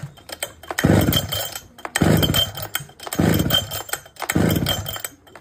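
Falcon 73cc two-stroke chainsaw's recoil starter pulled four times, about once a second, the engine turning over without catching: the saw has a starting problem.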